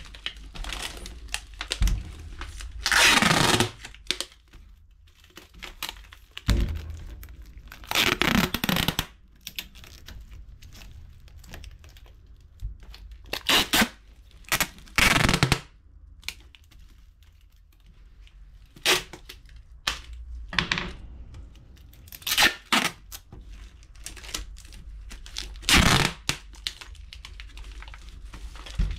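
A console being wrapped in a plastic bag and taped up: about a dozen short bursts of crinkling and tearing, with quieter handling between them.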